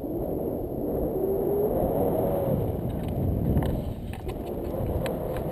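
Wind rushing over the microphone of a camera held out in tandem paraglider flight: a steady, low, noisy rush with slight rises and falls.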